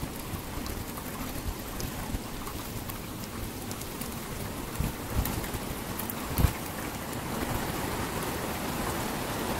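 Storm-force wind blowing steadily through bare trees. A few short low buffets of wind hit the microphone about five and six and a half seconds in.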